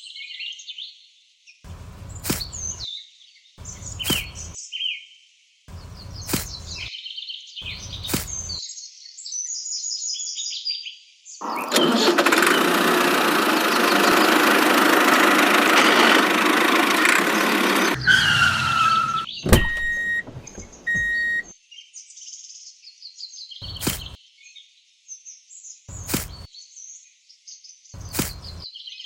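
Birds chirping throughout, with sharp taps about every two seconds. Midway, a loud steady rush of noise lasts about six seconds, followed by a falling whistle and two short beeps.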